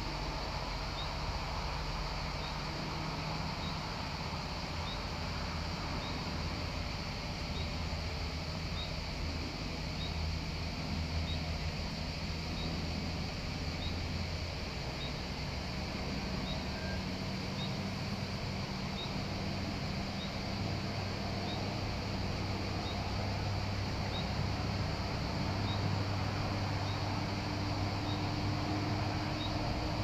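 Low engine drone, its pitch shifting a few times, with a short high chirp repeating about once a second.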